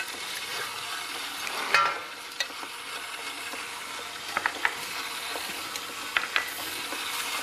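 Cauliflower patties frying in hot oil in a pan, a steady sizzle, with several light clinks of a utensil against the pan and bowls.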